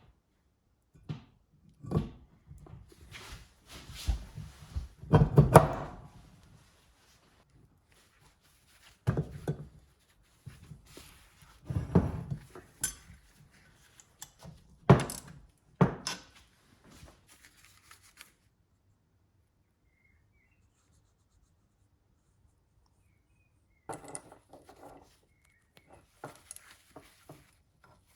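Hand work on car parts: scattered knocks, thunks and clicks of tools and metal parts being handled, with rustling in between. The sounds stop for several seconds past the middle, then lighter clicks resume near the end.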